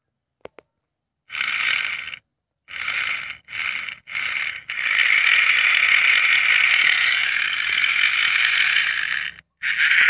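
Small DC motor running through a plastic gear train on a homemade remote-control car, switched on in four short bursts and then running steadily for about five seconds before it stops, with one more burst near the end.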